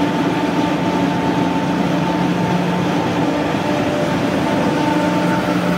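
Peanut shelling and grading line running: a steady machine din with a constant low hum over dense noise.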